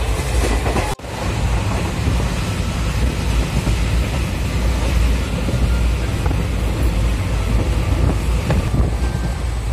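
Running noise of a moving Indian Railways passenger train heard from inside the coach: a steady low rumble and rattle through the open window. It cuts out for a moment about a second in.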